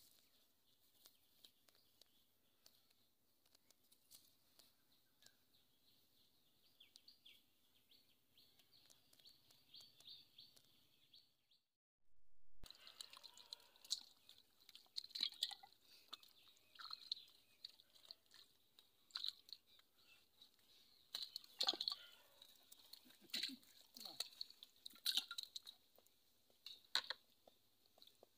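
For about twelve seconds, near silence with a steady high chirring in the background. After a short cut come irregular wet clicks and small splashes: fish moving in the shallow, muddy water of a dug hole trap.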